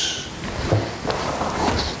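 Footsteps and body movement as a person steps away from a workbench, with a few light knocks and low thuds. A hiss fades out right at the start.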